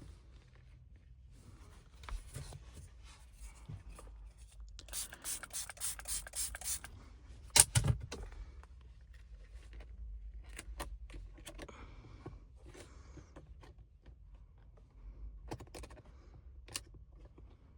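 Hands fitting a wet-applied screen protector film: a quick run of about seven spray-bottle squirts, then a sharp knock. After that come scattered light clicks and scrapes of handling.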